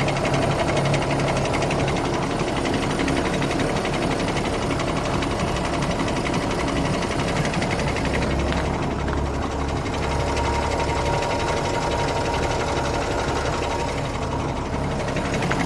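Nissan Pathfinder's V9X 3.0 V6 diesel engine running with a steady, rapid knock. The owner traces the knock to a failing crankshaft pulley rather than the timing chain.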